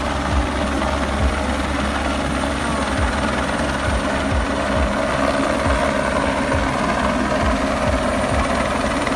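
Helicopter hovering low over the sea, its engine and rotor running steadily.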